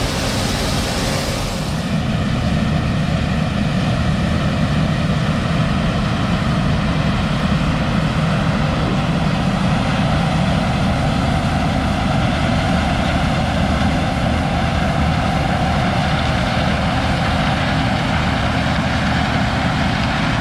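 Heavy diesel engine of harvest machinery running steadily at a constant pace, with a hiss in the first two seconds that fades out.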